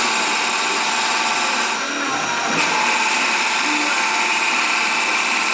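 Tormach 1100 CNC mill's spindle spinning a wooden spindle blank in a Duality Lathe setup, with a cutting tool turning the wood. It makes a steady machine whine over the cutting noise, and the tone shifts about two seconds in.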